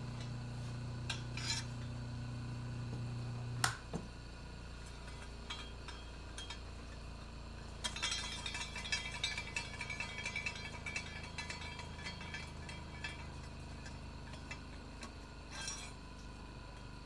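Light metallic clinking and scraping as a steel mower blade is handled and set on a blade balancer to check its balance. Before that, a low steady hum stops with a sharp click about four seconds in.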